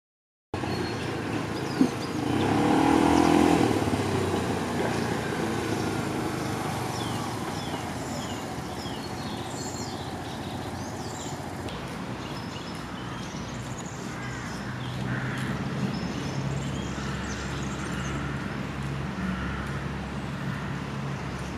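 Outdoor street ambience: a motor vehicle passes about two to four seconds in, then steady low traffic hum with short bird chirps.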